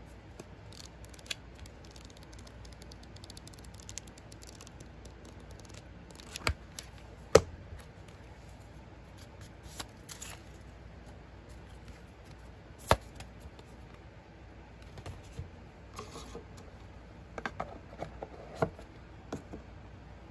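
Hands handling an oracle card deck and its box: scattered light clicks and rustles, with sharp knocks about six and a half, seven and a half and thirteen seconds in, and a run of small clicks near the end.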